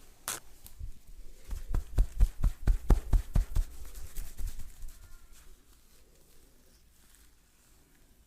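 Hands slapping in a fast rhythm, as in percussive head massage. The strikes come about four a second, each with a dull thud. They begin about a second and a half in and fade out near the five-second mark, after one short sharp sound near the start.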